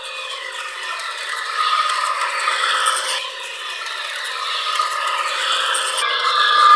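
Model train running on its track: the locomotive's small electric motor whirs and the wheels rattle along the rails, growing louder near the end as a locomotive passes close by.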